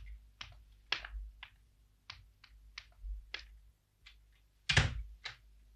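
A series of about ten sharp taps or knocks, irregularly spaced at roughly two a second, with one louder knock about three-quarters of the way through, over a faint low hum.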